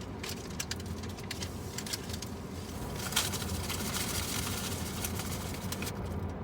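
Paper packaging crackling and rustling as a seasoning packet is handled and emptied into a paper fry bag, in many short crinkles with a denser rustle a few seconds in, over a steady low hum.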